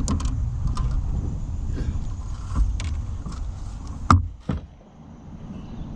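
Low rumble with a scatter of sharp clicks and knocks, about half a dozen, the loudest about four seconds in; the rumble falls away shortly after it.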